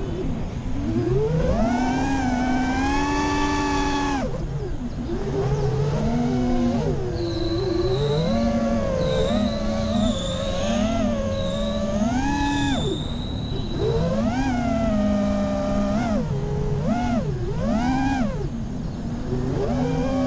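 FPV freestyle quadcopter's brushless motors (T-Motor LF40 2305 2450kv on HQProp Ethix S3 props) whining, the pitch rising and falling quickly as the throttle is worked through flips and dives. The whine drops low briefly about four seconds in and again around thirteen seconds, when the throttle is cut.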